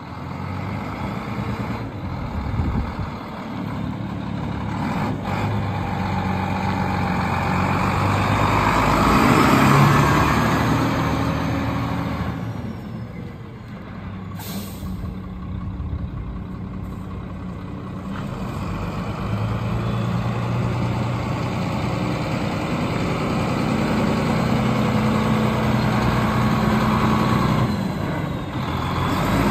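Sinotruk HOWO 371 hp tractor truck's diesel engine running, growing louder to a peak about a third of the way in, easing off, then building again through the second half. A short hiss about halfway through.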